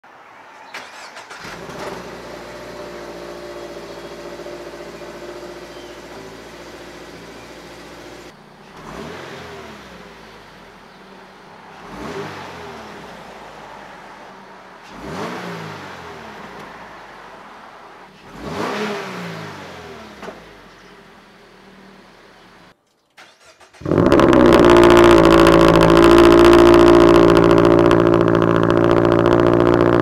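A 2023 Subaru BRZ's 2.4-litre flat-four on its stock exhaust starts cold and settles into a steady fast idle, then is revved four times to about 4000 rpm, each rev rising and falling back to idle. Near the end it starts cold again through an AWE Tuning Track Edition catback exhaust, much louder, and holds a steady high idle.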